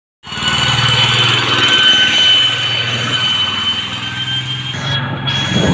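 Tractor engine running steadily, cutting in suddenly just after the start, with a steady high whine over the engine note.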